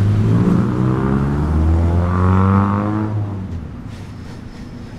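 Motor vehicle engine close by, accelerating with its pitch rising steadily, then fading away after about three seconds.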